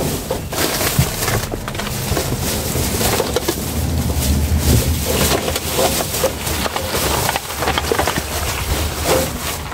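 Black plastic rubbish bags crinkling and crackling as a gloved hand rummages through them in a steel dumpster, a dense run of small crackles over a low rumble that is strongest around the middle.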